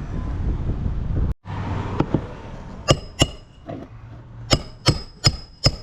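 Hammer driving galvanized roofing nails into a vinyl siding corner: about seven sharp, ringing metallic taps starting about two seconds in, coming quicker near the end. Before them, a steady background hum that cuts off suddenly.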